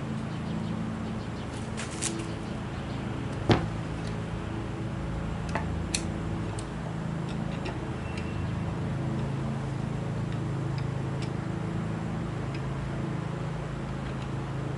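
A few sharp clicks and knocks of metal hand plane parts being handled and fitted together, the loudest about three and a half seconds in, over a steady low hum.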